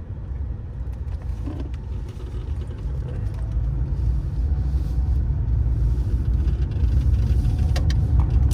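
Low, steady rumble of a Subaru Baja driving, heard from inside the cabin; it grows louder from about three seconds in.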